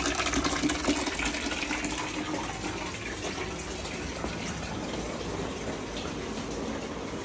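Water gushing steadily through a hose from a small electric water pump that is running, a little louder for the first two seconds.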